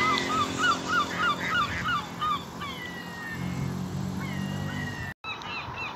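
Gulls calling: a rapid run of short, rising-and-falling cries, about four a second, for the first second and a half, then scattered longer gliding cries. The audio drops out briefly about five seconds in.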